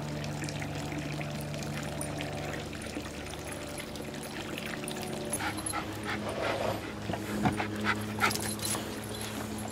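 Dogs giving a quick run of short yips and barks in the second half, loudest a couple of times near the end, over a steady droning background.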